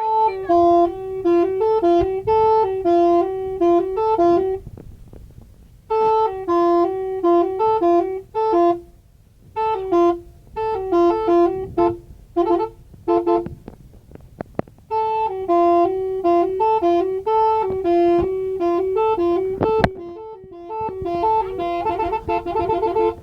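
Septic-tank suction truck's telolet horn, a set of musical air horns, playing a jingle: loud two-note tones stepping up and down in short phrases, with brief pauses between phrases.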